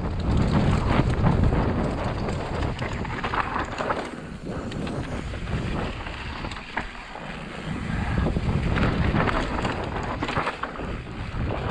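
Mountain bike descending fast on dirt singletrack: wind rushing over the camera microphone, tyres running over dry dirt and loose stones, and frequent clicks and knocks from the bike over bumps. It eases off for a few seconds in the middle and picks up again near the end.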